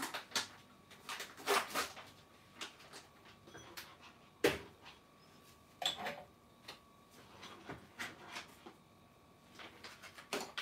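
Scattered knocks and clicks of kitchen things being handled while rice is fetched and served, with one sharp knock about four and a half seconds in.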